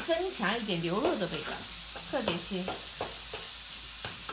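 Ground beef sizzling as it browns in a frying pan, stirred now and then, with a steady frying hiss and a few small scrapes or ticks.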